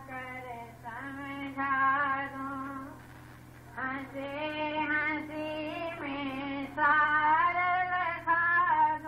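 A woman singing a devotional hymn (shabad) in long held notes with a slight waver. Her phrasing breaks off about three seconds in and resumes a second later. A steady low hum runs beneath.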